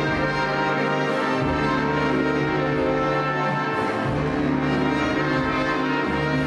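Orchestral music led by brass: sustained chords over a bass line that changes note every second or so.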